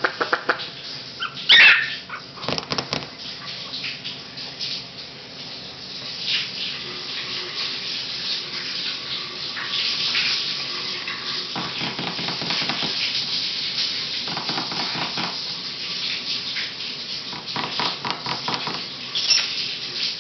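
Three-week-old Pomeranian puppies giving small, high yips and barks, loudest in the first few seconds, over the steady hiss of a shower running in the background.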